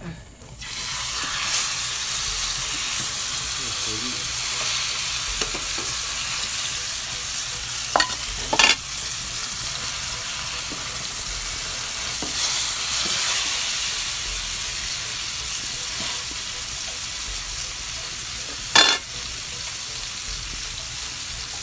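Masala-marinated grouper frying in hot oil in a pan: a steady sizzle that starts as the fish goes into the oil. A few short sharp knocks sound over it, two around eight seconds in and one near the end.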